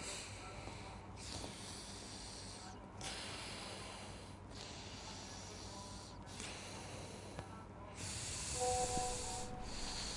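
A man breathing heavily and noisily through his nose, long breaths with short pauses between them.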